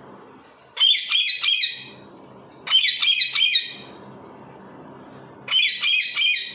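Parrot calling in three bouts of about a second each, every bout a quick run of four or five high-pitched notes; the bouts come about a second and a half apart.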